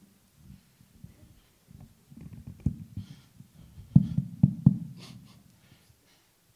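Handheld stage microphone being handled: low rubbing rumble and a few sharp knocks, the loudest three close together about four to five seconds in.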